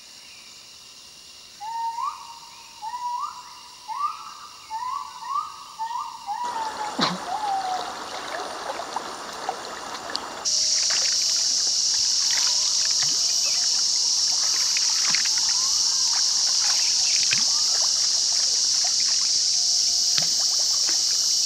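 Short rising whooping calls repeated about six times from the forest, then the rush of river water around a bamboo raft. From about ten seconds in, a steady high-pitched drone sets in over scattered splashes and knocks as the raft is poled.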